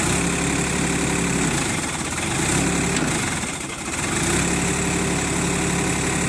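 Sonalika 45 hp tractor's diesel engine idling steadily. Its note dips and wavers briefly twice, at about 2 and 4 seconds in, before settling again.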